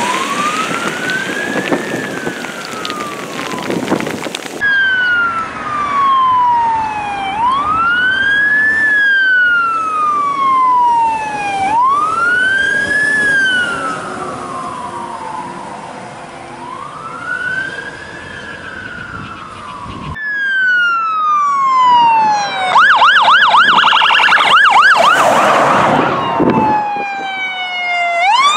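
Fire truck sirens wailing, rising and falling in pitch every few seconds, heard across several abrupt cuts. About two thirds of the way in the siren switches to a rapid yelp, then comes a loud blast before the slow wail returns.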